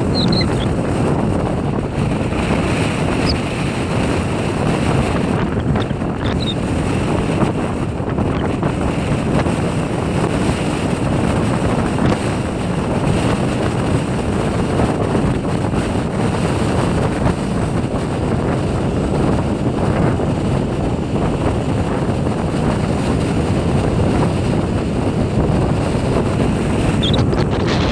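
Gale-force wind buffeting the microphone in a steady, loud rumble, with surf breaking underneath.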